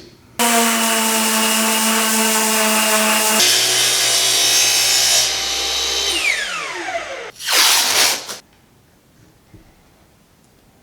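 Power disc sander running with a steady whine while sanding oak blanks, its tone shifting about three seconds in, then switched off and spinning down with a falling pitch. A short loud burst of noise follows near the end.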